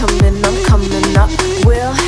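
Background dance music with a deep kick drum about twice a second and held pitched notes between the beats.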